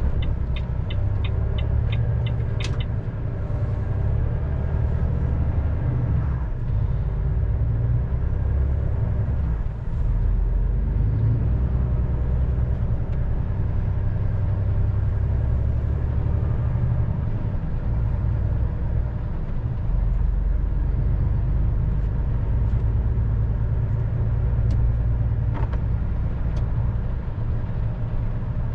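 Steady low engine and road rumble inside a truck's cab while driving. A rapid, regular ticking, like a turn-signal flasher, runs for the first few seconds as the vehicle turns at a junction, then stops.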